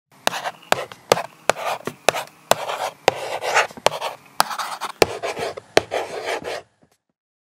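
A pen scribbling on paper in quick rasping strokes, with a sharp tap at the start of most strokes, about two a second, stopping suddenly near the end.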